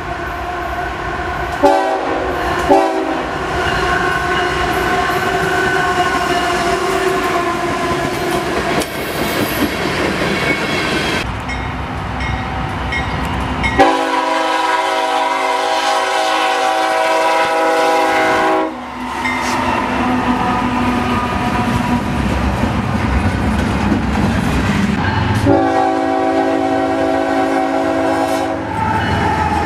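Nathan K5HL five-chime air horns on GE Evolution Series freight locomotives sounding several long blasts over the rumble and wheel clatter of approaching trains. The horn is played as a warning for grade crossings, with two strong blasts in the middle and a final one near the end.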